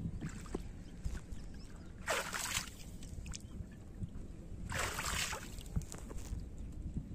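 Pond water splashing twice at the side of a small boat, short bursts about two and five seconds in, over a low rumble of wind.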